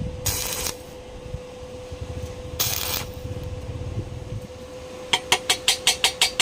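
Two short bursts of hiss, then about a second before the end a fast, even run of sharp metallic taps, about five a second, over a steady hum.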